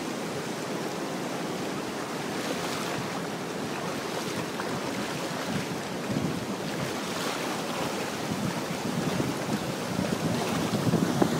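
Fast floodwater rushing across a road in a steady wash of moving water, with wind gusting on the microphone.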